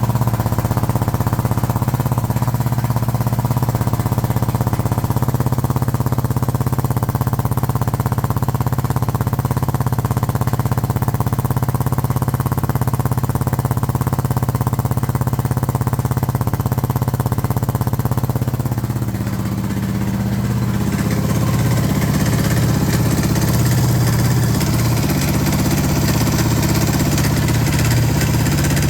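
Suzuki DR650 Dakar's single-cylinder four-stroke engine running steadily at idle, making noises the owner finds strange. The engine note changes about two-thirds of the way through.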